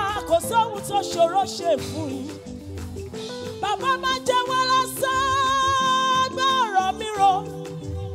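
Church choir singing a gospel song with instrumental accompaniment; a single voice holds one long high note in the middle.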